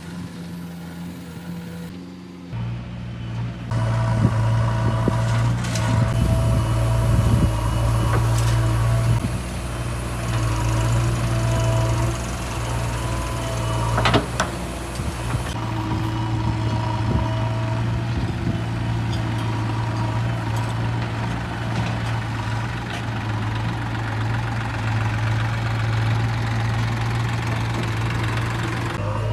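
Diesel engine of a JCB machine running steadily, getting louder a few seconds in, with scattered knocks and one sharp knock about halfway through.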